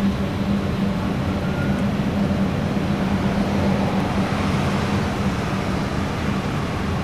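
Steady ambient rumble with a constant low hum, held at an even level and fading out near the end.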